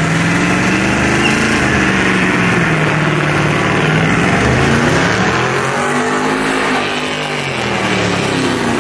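LS-swapped Ford F-100 pickup's V8 held at high revs during a burnout donut, its rear tires spinning and smoking on wet pavement. The revs climb, dip about halfway through, climb again and ease off near the end.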